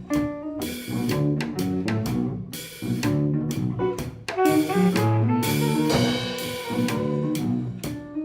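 Instrumental band playing a jazz arrangement: drums keep time with regular hits under a moving melody.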